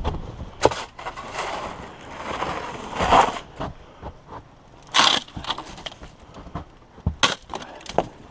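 Shovel working through packed snow: longer scraping swishes broken by irregular sharp crunches and knocks, the loudest of them a little after three seconds and again about five seconds in.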